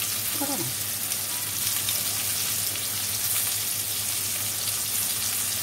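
Stuffed sponge gourd pieces frying in hot oil with a mustard-seed and cumin tempering, a steady sizzle.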